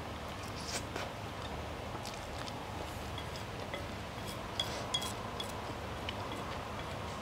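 A fork clinking and scraping on a plate while eating spaghetti. There are scattered light clicks and a few short ringing clinks, most of them about four to five seconds in, over a steady low hiss.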